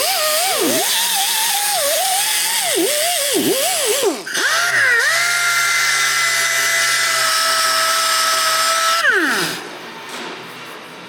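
High-speed handheld power tool whining, its pitch dipping and recovering again and again as it bogs under load, then running free at a steady pitch for about five seconds before spinning down.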